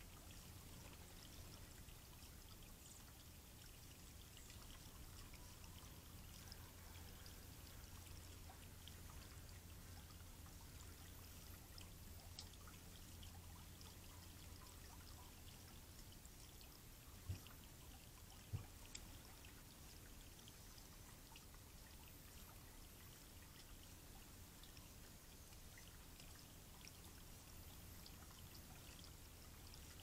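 Faint, steady trickle of water spilling over a stone column fountain onto river rocks. Two soft thumps about a second apart a little past the middle.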